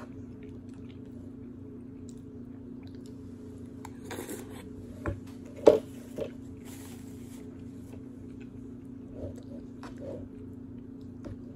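Someone eating oatmeal with banana: chewing, and a metal spoon clicking and scraping in the bowl in a few short sharp strokes, the loudest a little over halfway through. A steady low hum runs underneath.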